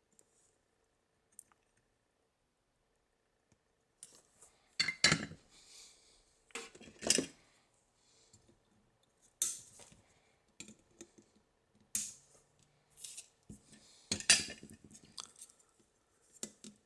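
Flush cutters snipping off the LED's excess wire leads on a circuit board: a series of sharp snips starting about four seconds in, the loudest about a second and then nine seconds after that, with handling clicks between.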